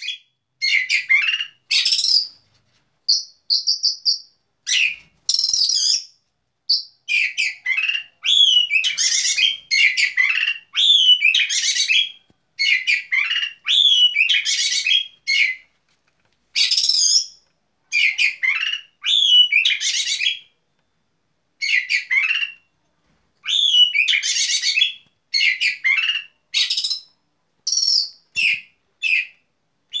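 Oriental magpie-robin (kacer) breeding-season song: a rapid run of short, varied whistles and chirps, each phrase about a second long, separated by brief silent gaps.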